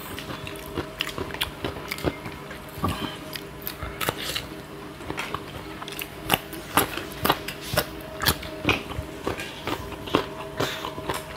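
People eating by hand, biting into and chewing crisp raw cucumber slices: many short crunches and clicks at an irregular pace, over a faint steady hum.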